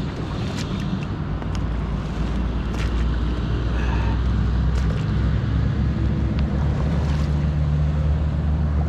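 Dry marsh reeds and brush rustling and snapping in a few short, sharp cracks as someone pushes along a pond's edge, over a steady low rumble.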